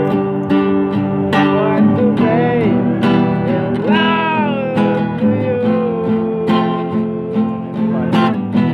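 Acoustic guitar strummed steadily under a man singing an Indonesian pop ballad, with a sliding phrase followed by one long held note in the middle. The singing is meant to be off-key.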